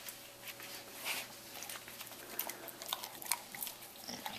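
A dog mouthing and chewing a hard homemade cheese-and-cornmeal dog biscuit taken from a hand: quiet, irregular clicks and crunches, thicker in the second half.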